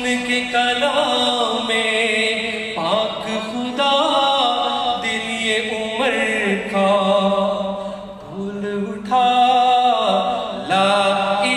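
A man singing a naat, an Urdu devotional poem in praise of the Prophet, unaccompanied into a handheld microphone. He holds long, wavering notes with a short breath pause about eight seconds in.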